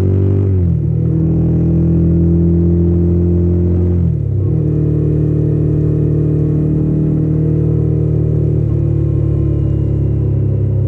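Yamaha XT600's single-cylinder four-stroke engine pulling under load while riding. The pitch climbs and drops at an upshift under a second in, climbs again and drops at a second upshift about four seconds in, then holds nearly steady at cruising speed.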